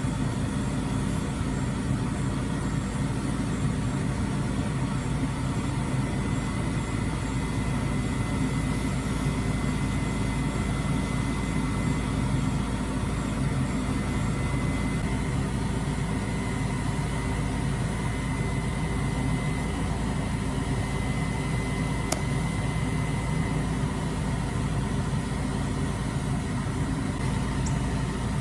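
Boom truck's engine running steadily, driving the hydraulic crane as it lifts a bundle of drywall, with a faint high whine in the middle stretch.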